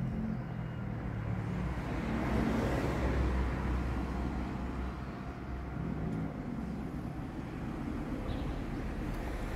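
Road traffic: a car driving past, its engine and tyre noise swelling about two to three seconds in and then fading, over a steady low engine hum.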